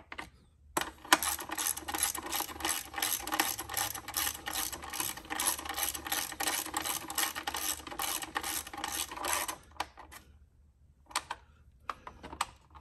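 Ratchet with a 10 mm socket clicking rapidly and evenly, about six clicks a second, as it spins an engine top-cover screw in. The clicking stops about ten seconds in, followed by a few single clicks near the end.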